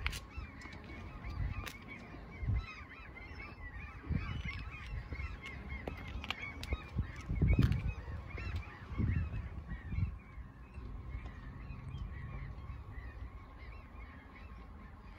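Birds calling: a flock's many short, repeated calls, with a few low bumps, the loudest about halfway through.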